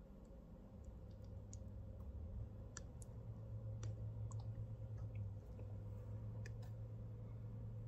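Faint, scattered light clicks and ticks as a soldering iron and solder wire are worked along the soldered seams of a stained glass panel, over a steady low hum.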